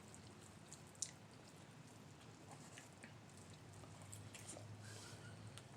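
Faint chewing and small wet mouth clicks of someone eating, with one sharper click about a second in; otherwise close to silence.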